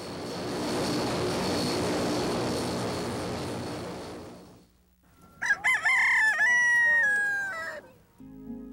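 A jet airliner rushing along the runway, the noise swelling and then fading away over about four seconds. Then a rooster crows once, a long call that falls in pitch at the end.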